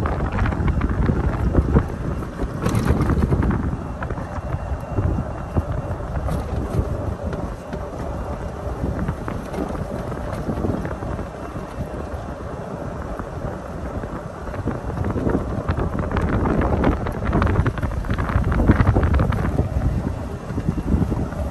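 Wind buffeting the phone's microphone: a low, unpitched rush that rises and falls in gusts, strongest near the start and again toward the end.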